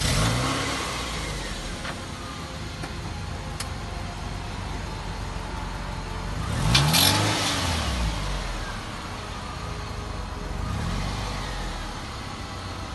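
Toyota MR2 Spyder's mid-mounted 1.8-litre four-cylinder engine firing up and settling to idle. It is revved up and back down once about seven seconds in, the loudest moment, and more lightly again about eleven seconds in.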